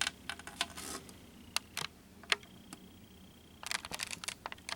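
Light clicks and knocks of plastic model-kit sprues being handled, bunched at the start and again near the end, with a faint high steady whine for about a second in the middle.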